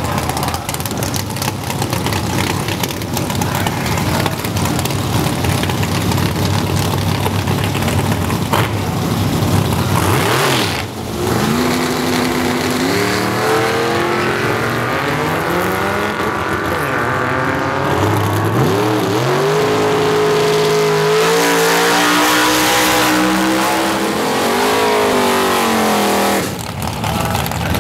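Chevrolet S10 Xtreme drag pickup's engine rumbling at the starting line, then launching and running hard down the drag strip, its pitch climbing and dropping back at each of several gear changes. Near the end another drag pickup's engine starts up in a burnout.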